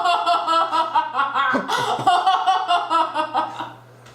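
High-pitched laughter, a rapid run of pulsing ha-ha sounds that stops about three and a half seconds in, over a steady low hum.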